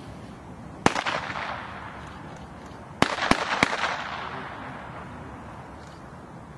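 Four blank-pistol shots fired by the decoy during the dog's attack: one about a second in, then three in quick succession about two seconds later, each trailing off in an echo.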